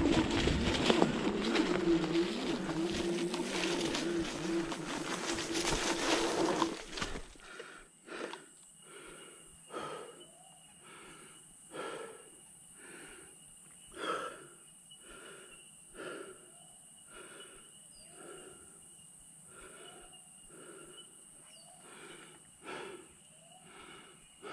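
Dragon GTR v2 electric scooter riding over rough ground: a steady motor whine under the noisy rumble and rattle of the ride. It stops abruptly about seven seconds in, leaving a person's heavy breathing, about one breath a second, from the effort of the ride.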